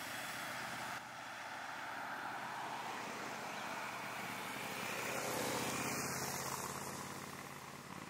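Road traffic passing: a steady rush of tyre and engine noise from cars and motorcycles, swelling to its loudest about halfway through and then fading.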